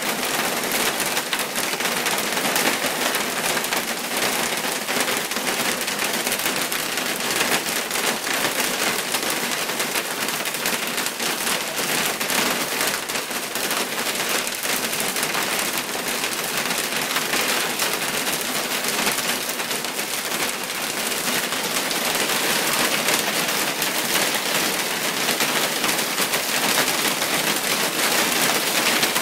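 Hailstones falling steadily, a dense clatter of many small ice pellets striking the lawn and paving stones.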